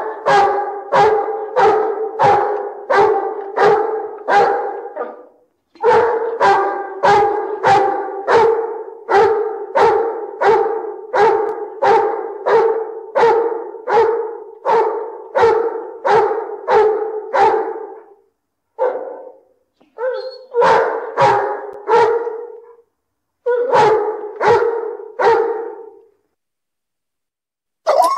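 Great Dane barking over and over, about two barks a second, in long runs broken by short pauses; the barks stop about two seconds before the end.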